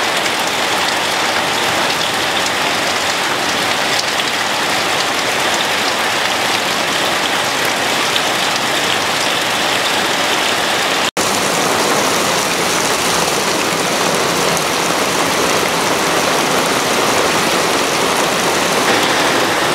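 Heavy rain pouring down steadily, with a split-second break about eleven seconds in.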